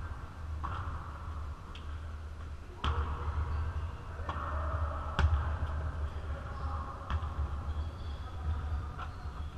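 Basketball thuds and bounces on a gym floor, single hits at irregular intervals echoing in the large hall, the loudest about five seconds in, over a steady low rumble.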